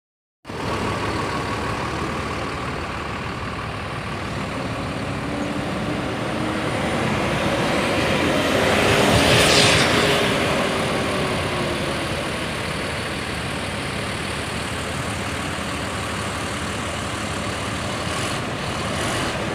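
A freshly tuned racing engine on a test run goes past. The sound swells to a peak about halfway through, then fades back to a steady drone.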